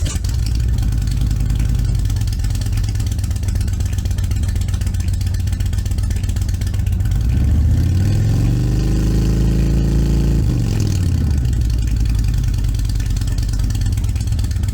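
Indian Springfield Dark Horse's V-twin motorcycle engine idling, then revved up once about halfway through, held for a couple of seconds and let back down to idle.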